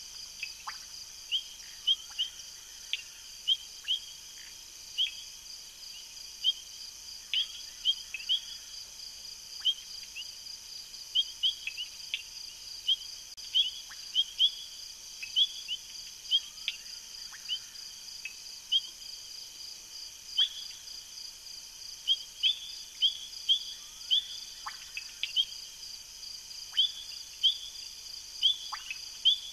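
Night-time insect chorus: a steady high pulsing trill, with short sharp chirps coming at irregular intervals, often two or three a second.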